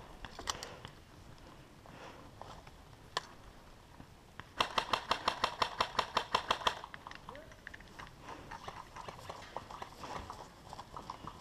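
A rapid burst of about fifteen shots from a replica skirmish rifle, about seven a second for two seconds, starting a little before the middle, with a few single shots earlier.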